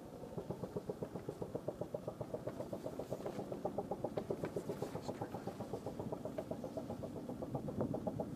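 AH-1Z Viper attack helicopters' rotors beating in a fast, even chop, steady for several seconds.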